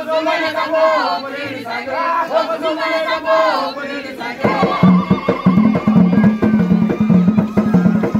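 Girls singing together in chorus. About four seconds in, tall wooden hand drums come in with a fast, driving beat under the singing.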